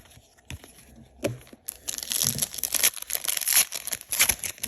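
Foil wrapper of a trading card pack being torn open and crinkled by hand: a few light clicks at first, then about three seconds of dense crackling.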